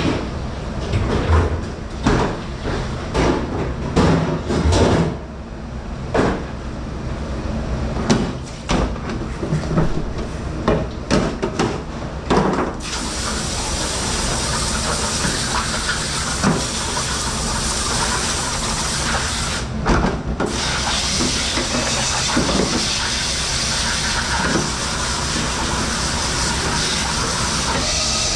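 Dishes, pans and tubs clattering and knocking in a commercial dish pit; about halfway a steady hiss of spraying water starts suddenly and runs on, breaking off once for a moment.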